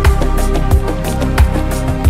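Background music with a steady beat: a low kick drum about every two-thirds of a second under held pitched tones.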